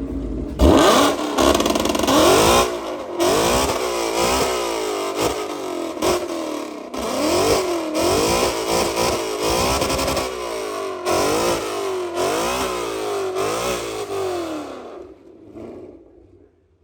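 An engine revving again and again, its pitch rising and falling about once a second, with sharp cracks between some of the revs, then fading out near the end.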